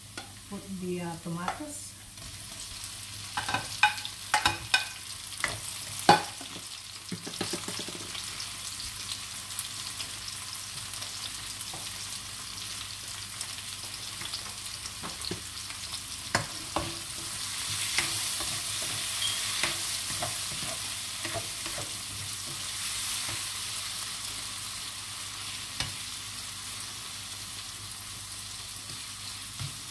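Chopped tomatoes and onions frying in olive oil in a wok: a cluster of sharp utensil knocks a few seconds in as the tomatoes go in, then a steady sizzle that swells for a few seconds around the middle, with occasional spatula clicks against the pan.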